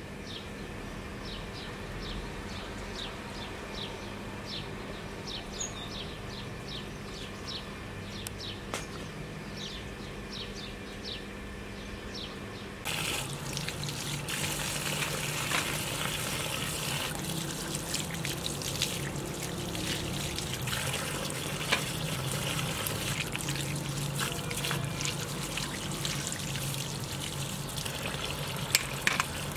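Water from a garden hose pouring and splashing over hands scrubbing a raw lamb trotter, starting suddenly about 13 seconds in. Before that, a run of short high chirps about twice a second.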